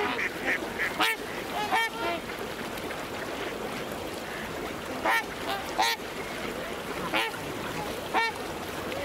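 Geese honking: a quick run of calls at the start, then single honks scattered every second or two.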